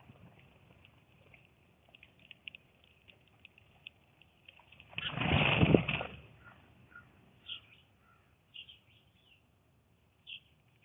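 Blue jay giving short, scattered calls, several in the second half. About halfway through, a loud rushing noise lasting just over a second covers them.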